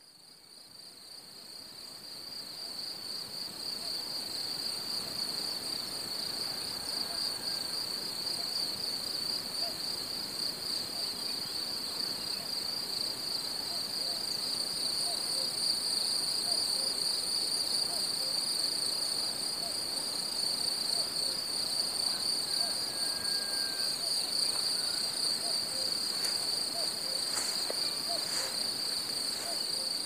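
Cicadas singing in one steady, unbroken high-pitched chorus that fades in over the first few seconds.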